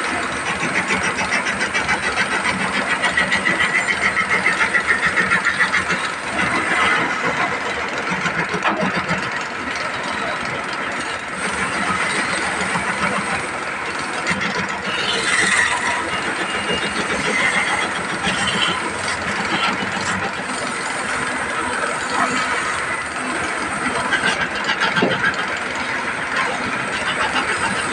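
A machine running steadily with a fast, fine rattle that swells and eases a little but never stops.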